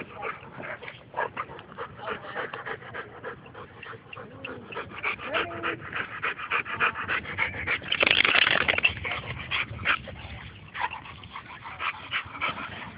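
Dogs panting hard in quick, rough breaths while playing, with a louder, noisier stretch about eight seconds in.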